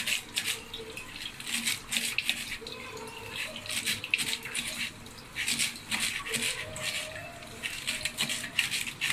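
Water splashing at a steel kitchen sink, with irregular short clicks and taps as wet hands handle and cut fresh coriander over a steel plate.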